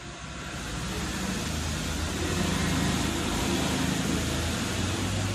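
A motor vehicle's engine hum and noise, swelling over the first couple of seconds and then holding steady.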